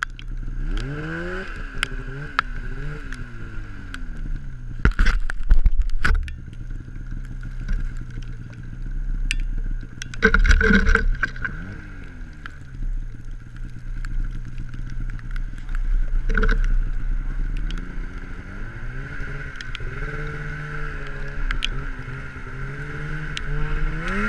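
Polaris snowmobile engine revving up and down again and again, its pitch rising and falling over a steady high whine. Several loud knocks and scrapes break in, the loudest about a fifth of the way in and near the middle.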